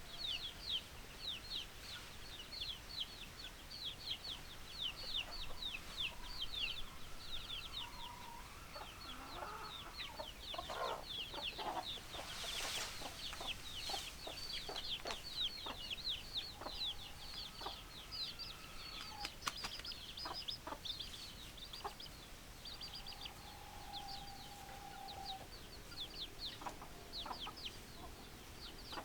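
A flock of chickens: rapid, high-pitched peeping runs on almost without a break, with scattered lower clucks and a short rustle about twelve seconds in.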